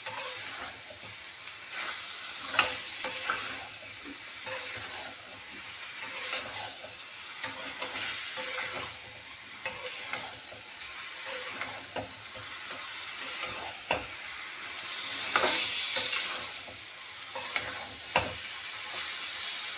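Boiled jackfruit pieces sizzling in fried masala in a metal kadai as they are turned over and coated with a metal spatula, which scrapes and clicks against the pan now and then. The sizzle swells louder about three quarters of the way through.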